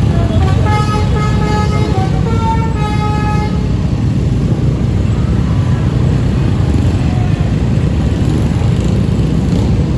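A bus's multi-tone telolet horn plays a short melody of stepped notes over the first few seconds, then stops. A loud, steady low rumble of engine and road traffic runs underneath.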